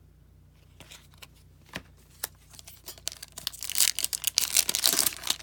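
A foil trading-card pack wrapper being torn open and crinkled: a few light clicks, then dense crackling from about three seconds in.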